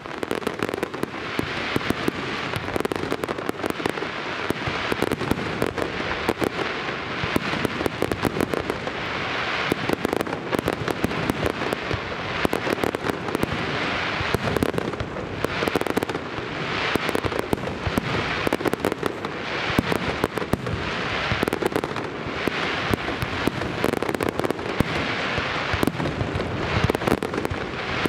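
Aerial display fireworks going off without pause: shells bursting and dense crackling stars, with many sharp bangs. The crackle swells and fades roughly every two seconds.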